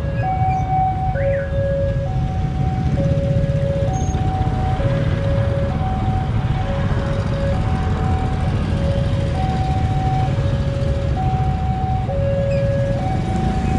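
Railway level-crossing warning alarm sounding a two-tone electronic chime, alternating high and low notes each held just under a second, the signal that a train is approaching and the crossing is closed. Under it runs a low rumble of motorcycle engines idling at the barrier.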